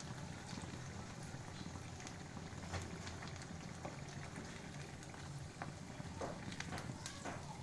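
Potato rolls deep-frying in a pan of hot oil: a steady sizzle with many small scattered crackles and pops.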